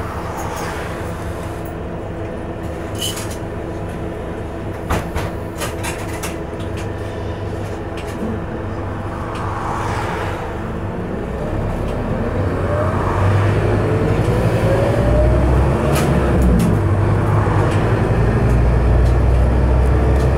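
Scania K230UB bus's Scania DC9 nine-litre five-cylinder engine and ZF Ecomat automatic gearbox, heard from inside the passenger saloon. It runs fairly evenly for the first half, then from about halfway the engine pulls harder and louder, with the gearbox's rising whine (howl) over it.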